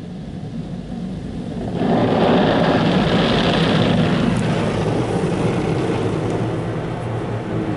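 Water jets of a Mark VII SoftWash XT automatic car wash spraying onto the car, heard from inside the cabin: a rushing hiss that starts about two seconds in and slowly eases off, over a low steady hum.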